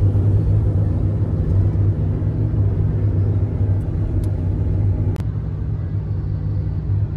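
A vehicle's engine running with a steady low rumble, with a short click about five seconds in.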